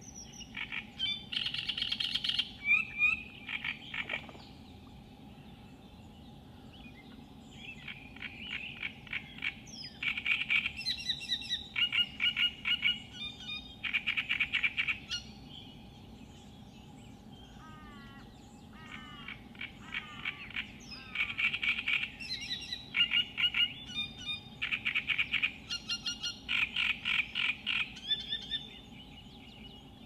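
Great reed warbler singing its harsh, grating, frog-like song of rapidly repeated phrases. The song comes in three bouts, at the start, about 8 s in and about 20 s in, with pauses of a few seconds between them.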